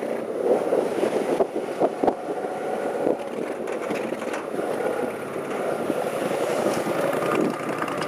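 Long-tail mud motor with a twin exhaust running steadily, pushing the boat under way, with a few brief knocks about two seconds in.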